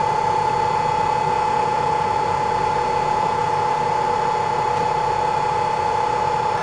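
Zhuomao ZM-R5830 BGA rework station running its heating cycle: the hot-air head's blower fans make a steady hiss with a steady high whine over it, as the chip is heated toward solder-melting temperature.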